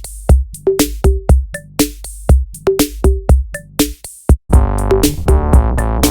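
Background electronic music with a steady drum-machine beat. About four and a half seconds in, after a brief break, a sustained synth chord layer comes in under the beat.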